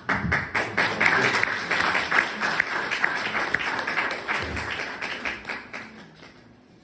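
Audience applauding: many hands clapping, starting suddenly and dying away over about six seconds.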